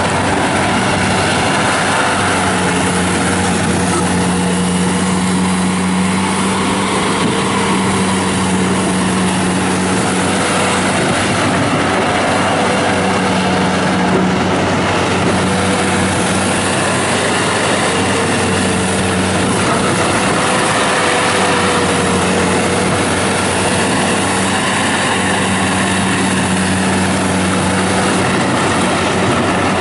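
Bobcat T180 rubber-track skid steer loader with its Kubota diesel engine running steadily while being driven around: a continuous engine drone with a held low hum and a fainter higher tone that waver slightly in pitch.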